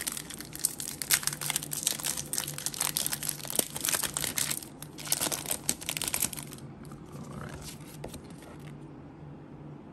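Foil wrapper of a Pokémon trading card booster pack crinkling and tearing as it is ripped open by hand, a dense run of sharp crackles that stops about six and a half seconds in.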